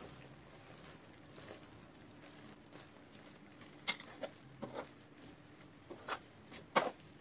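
Metal spatula scraping and knocking against a metal kadhai while stirring gram flour and semolina in ghee: a few short, sharp scrapes and taps over a quiet background, the loudest about four seconds in and near the end.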